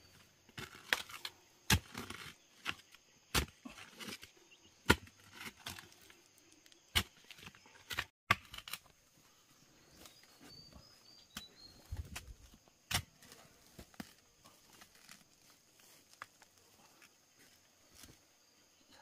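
A digging tool chopping and scraping into soil to unearth wild yam tubers, with sharp, irregular strikes: about one a second for the first half, sparser after that. A faint steady insect drone runs underneath.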